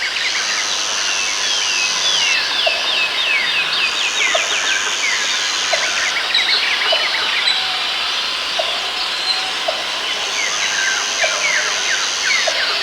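Jungle ambience of many birds calling with quick, descending chirps, over a steady background hiss. A high, steady buzz comes in three times and cuts off each time, and short low pips sound here and there.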